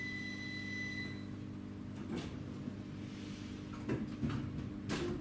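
Inside an electric commuter train, a single steady electronic warning beep sounds for about a second and a half, the train's door-closing signal. The low steady hum of the train's equipment runs on under it, and a few sharp knocks and clunks follow, the loudest near the end.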